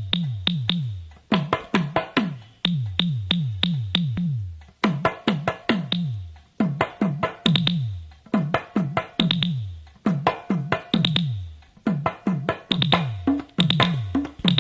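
Instrumental backing music: fast runs of electronic drum-machine toms, each hit dropping in pitch, over synthesizer, with short breaks between the runs.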